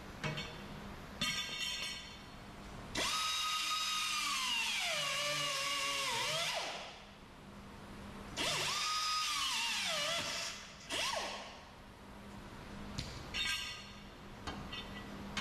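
A hand-held power tool worked on a car body panel runs twice for a few seconds, its pitch dropping steadily each time. A few short knocks come before and after.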